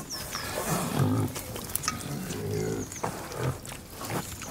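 Domestic pig grunting, a run of short low grunts with scattered clicks between them.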